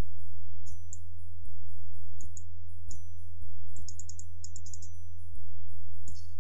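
Keys tapped on a computer keyboard: scattered single keystrokes and a quick run of them about four seconds in, over a steady low hum.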